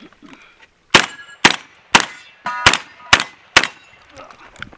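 Semi-automatic 12-gauge shotgun firing six quick shots, two strings of three about half a second apart with a short pause between them. Some shots are followed by a brief metallic ringing.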